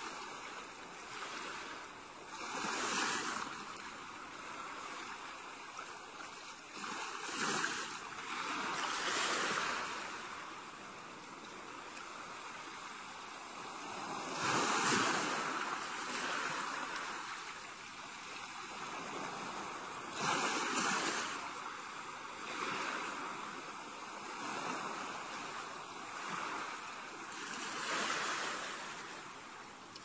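Soft ocean surf breaking and washing up the shore. The wash swells and falls back about every four to five seconds, some washes louder than others.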